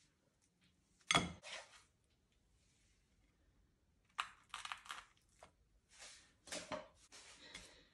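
A slice of toast set down on a ceramic plate with a sharp knock, then a spatula scraping and tapping on the plate several times as a carrot-and-onion fried egg is slid off it onto the toast.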